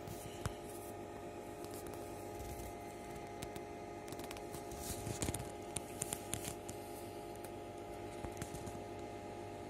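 Steady hum and fan noise from a running HP 9825B desktop computer, with a few light clicks around five to six and a half seconds in.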